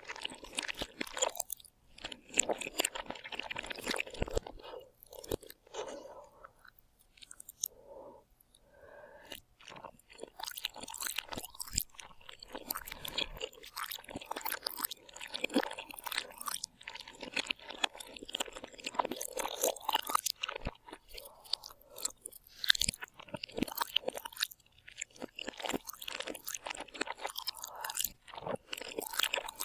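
Close-miked chewing and crunching of food, a dense run of irregular crackles and bites, easing off for a few seconds partway through.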